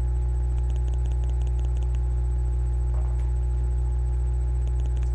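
Steady low hum, with a faint brief rustle about three seconds in.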